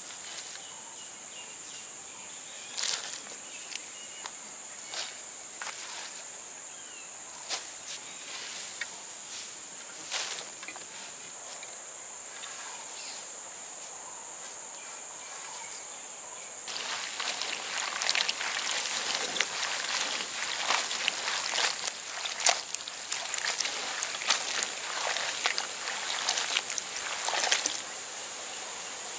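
Chopped green lasia stems rustling and clicking as hands handle them in a clay pot, over a steady high insect drone. About two-thirds of the way in, the drone drops out and a denser, louder crackling rustle of the greens being handled takes over until near the end.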